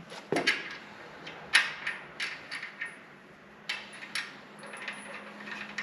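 Irregular sharp metallic clicks and clinks of hardware and hand tools while a rear shock absorber is fitted, the loudest about a second and a half in. A faint steady hum comes in about four seconds in.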